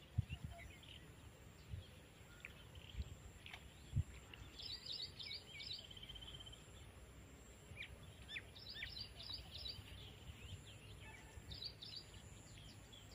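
Small birds chirping in short, high twittering phrases, three or four times, over faint outdoor background noise, with a few soft low thumps.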